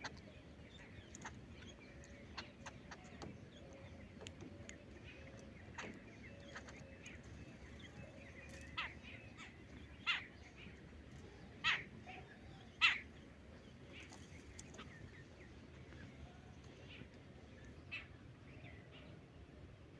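Lovebirds chirping: many short, sharp calls scattered throughout, with three louder shrill calls a little past the middle.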